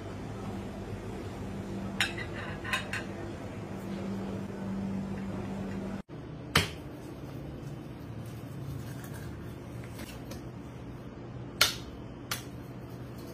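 Metal utensils clink now and then in a few short, sharp strikes over a steady low hum.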